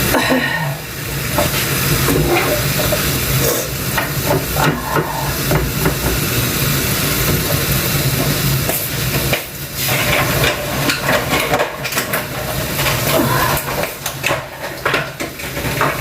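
Kitchen work sounds: a steady hiss over a low hum, with frequent irregular knocks and clicks.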